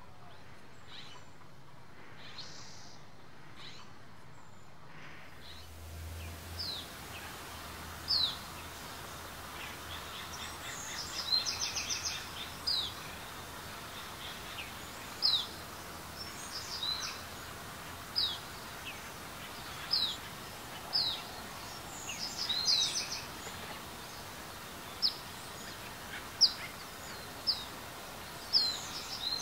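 California quail chicks peeping: short, high, thin calls that slide downward, repeated about once a second from about six seconds in, with a few brief runs of rapid trilling among them.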